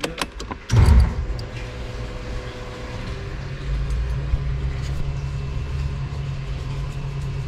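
Electric fuel pump running with the ignition on, a steady low hum, pumping old, stale fuel out of the tank. A few clicks come in the first second as the key is turned and the pump starts.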